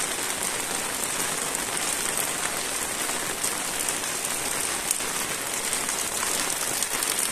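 Steady rain falling, an even hiss with scattered close drop ticks.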